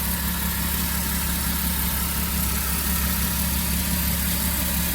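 Volkswagen Eurovan V6 engine idling steadily, its accessory belt drive turning the newly fitted water pump on the old belt. A rustling is still there from the belt-drive area, its source not yet found.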